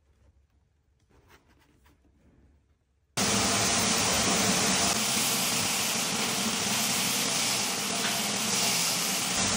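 Faint handling clicks as hook-and-loop sanding discs are pressed onto a multi-disc floor sander's plates. About three seconds in, a sudden cut to the loud, steady noise of the multi-disc floor sander running, with its dust extractor, as it sands bare herringbone parquet.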